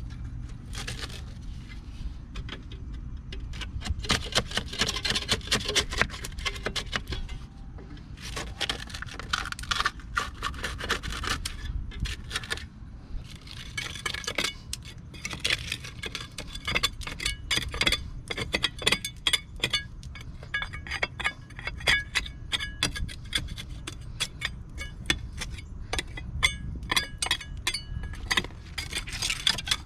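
Continuous light metallic jangling and clinking over a steady low rumble.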